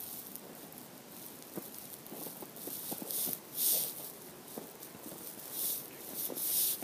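Footsteps crunching in snow, an uneven run of steps with a few louder ones past the middle and near the end.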